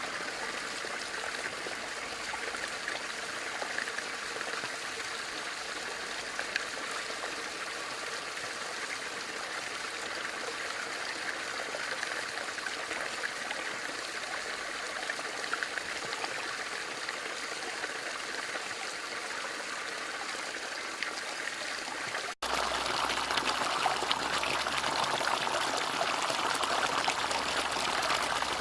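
Bamboo water fountain with water trickling and splashing steadily. About two-thirds of the way through it cuts out for an instant and comes back louder, with more low rumble.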